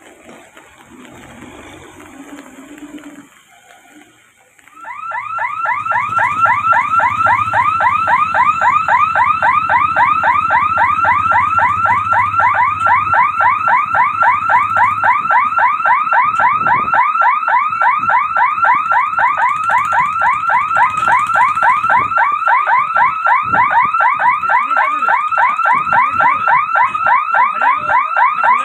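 Electronic warning hooter of a railway level-crossing gate, starting about five seconds in and sounding continuously as a loud warble of rapid rising chirps, several a second. It warns that the barrier is closing for an oncoming train. A low hum runs under the first half of it.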